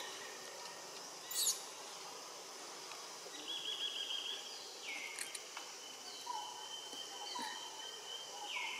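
Forest ambience: birds calling, with a brief sharp chirp about a second and a half in, trills and falling whistled notes, over a steady high insect tone.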